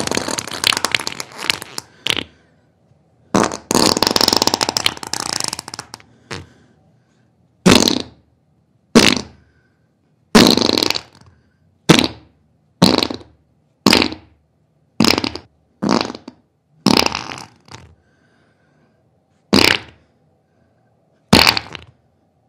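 A string of separate fart sounds. The first two are long and drawn out, then about a dozen short ones come roughly a second apart: flatulence, the sound of an upset stomach.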